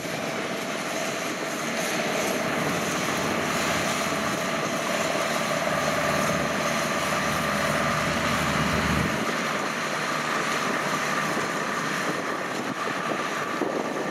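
Kubota DC-70 rice combine harvester cutting, fitted with a larger swapped-in engine from a 100-series machine. The engine runs steadily under load without bogging, with a steady whine over it.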